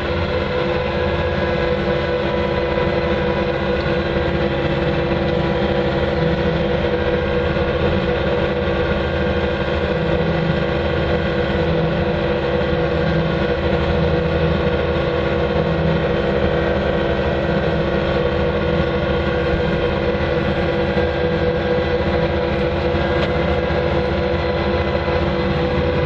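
Bobcat 2410 loader's engine running steadily as the machine drives along the road, heard from inside the cab.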